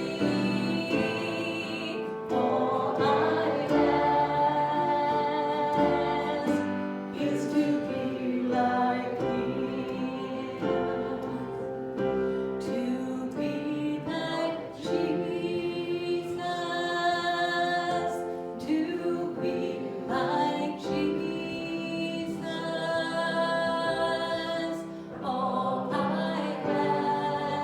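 Church worship music: several voices singing together over instrumental accompaniment.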